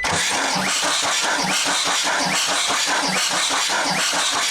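Case 430 skid steer's 4.5 FPT diesel engine cranking over on the starter without firing during a compression test, chugging evenly at about two and a half compression strokes a second.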